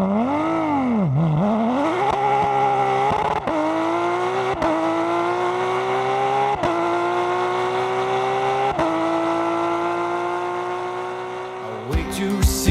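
A car engine revving hard: a quick rev up and back down, then a long pull through the gears, its pitch climbing and stepping at about four shifts before it fades.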